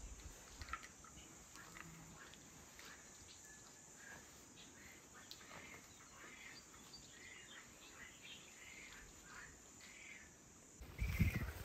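Faint, steady high-pitched cricket trill, with soft scattered rustles of fresh herbs being picked over by hand and a few faint chirps. Near the end the sound turns suddenly louder, with low thumps.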